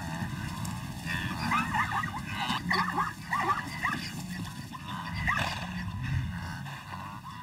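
Wild animal calls: a rapid series of short, high yelping calls, several a second, over a low background noise.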